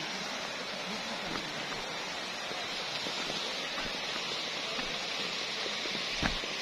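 Steady rushing of a small mountain waterfall and the rocky stream below it, with a couple of dull bumps near the end.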